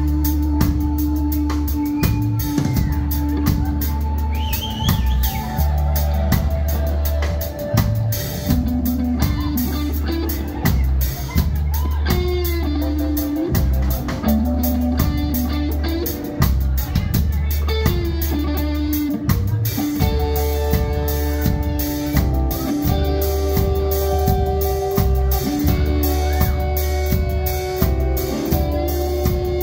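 Live rock band playing an instrumental jam: electric guitar lines with string bends over a steady drum-kit beat, bass and keyboards.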